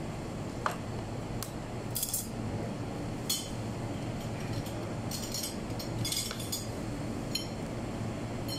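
Flat steel kebab skewer clinking and scraping as chunks of marinated chicken are pushed onto it by hand: a handful of short, sharp metallic clinks scattered irregularly, over a steady low kitchen hum.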